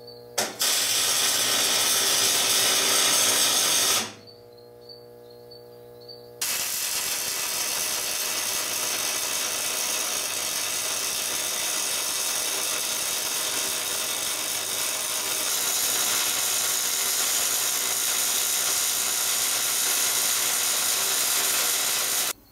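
Arc welding on the steel auger: a loud, steady crackle and sizzle of the arc laying a bead, with heavy spatter. It stops about 4 s in, leaving a steady low hum for a couple of seconds, then the arc strikes again and runs on.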